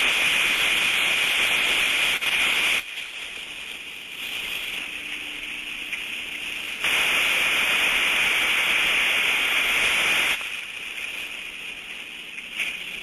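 Thermodynamic disc steam trap cycling, heard through an ultrasonic detector: a loud rushing hiss of discharge that drops to a quieter hold about three seconds in, then a second loud discharge from about seven to ten seconds in before dropping back. This distinct on-off cycle is the sign of a good, working disc trap.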